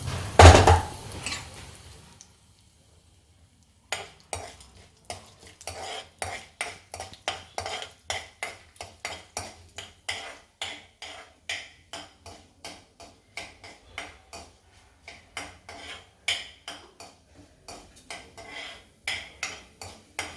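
A metal spoon stirring and scraping in a pan, with regular strokes about two to three a second, as mustard seeds and lentils are stirred for a tempering, with a faint sizzle. A loud knock of metal comes about half a second in, followed by a short quiet pause before the stirring starts.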